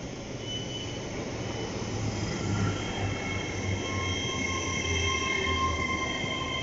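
LNER Azuma (Hitachi) train passing close by, its wheels rumbling on the rails. A steady high whine of several tones builds about halfway through and grows louder as the coaches go by.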